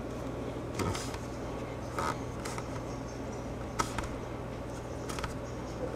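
Quiet handling sounds of Play-Doh being worked by hand: a few scattered soft taps and clicks over a steady low hum.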